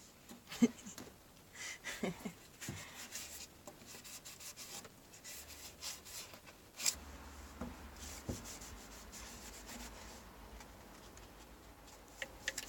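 Hand rubbing strokes over a wooden piece during finishing, irregular and scratchy, with a few light knocks and clicks, the sharpest about half a second in.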